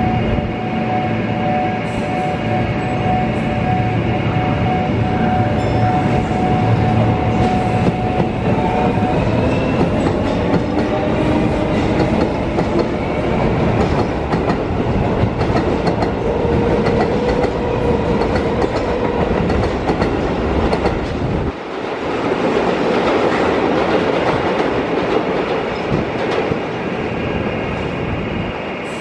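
Keio Line electric commuter train pulling away. A steady electrical hum gives way, about eight seconds in, to a traction-motor whine that rises in pitch as the train accelerates. In the later part, the wheels rumble and clatter over the rails and points as the cars go by.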